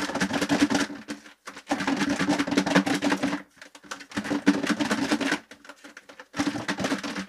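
Buffalo wings and sauce being shaken in a lidded plastic bowl to coat them: about four bouts of rattling shaking, each a second or two long, with short pauses between.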